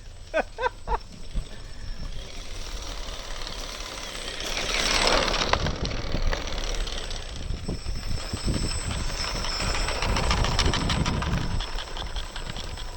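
Remote control rock-crawler truck driving over rough ground: motor and drivetrain running, with the wheels and body rattling over rocks, and a harsher crunching stretch a few seconds in. Three short pitched calls sound near the start.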